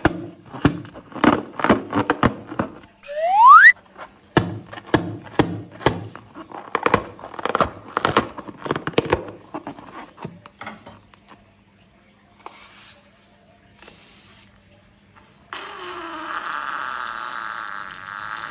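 Slime being squeezed and worked by hand, a rapid run of wet crackling and popping clicks. About three seconds in comes one loud, short squeal rising sharply in pitch. Near the end there is a steady hiss lasting a few seconds.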